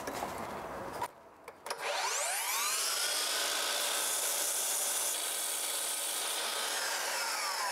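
Cordless Makita miter saw's motor spins up with a rising whine about two seconds in, then runs steadily as the blade is lowered through a piece of trim molding. Near the end the whine starts to fall as the saw winds down.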